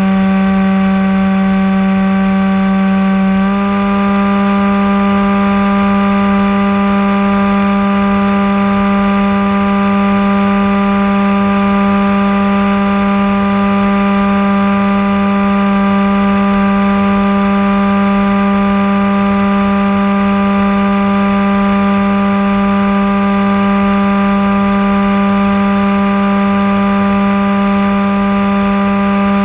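Maxi-Swift RC flying wing's motor and propeller running at steady cruise throttle, a constant droning whine that steps slightly higher in pitch about three seconds in, over a low rush of airflow.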